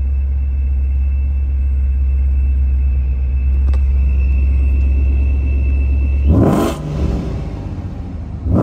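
Supercharged Ford 5.0 Coyote V8 running at a steady speed with a low, even hum and a faint steady high whine, heard from inside the car. About six seconds in, the steady note breaks off into a short loud burst, and a second short loud burst comes near the end.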